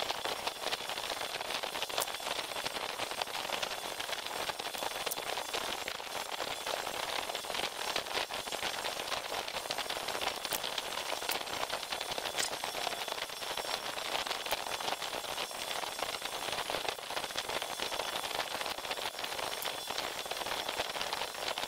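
Electric welding arc crackling and hissing steadily, with sharp pops throughout, as it melts lead intercell connector straps on an industrial lead-acid battery.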